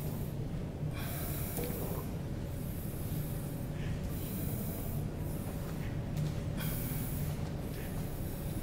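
A person's breathing, a soft hiss that comes and goes every second or so, over a steady low hum.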